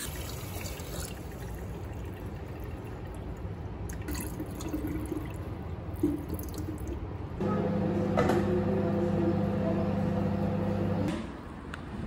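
Rinse water poured from a bowl of rice splashing and dripping into a stainless steel sink drain. Then a steady electric hum, from a microwave oven cooking the rice, sets in about seven seconds in and cuts off suddenly near the end.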